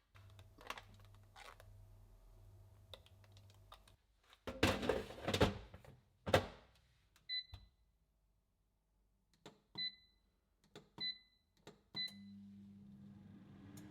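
Clicks and handling noises, then four short electronic beeps from an appliance's buttons being pressed, after which the appliance starts running with a steady hum.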